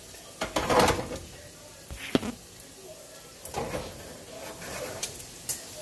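Nonstick frying pan and spatula handled on a stovetop: a scraping rustle about half a second in, a sharp knock about two seconds in, and a few lighter knocks and scrapes later.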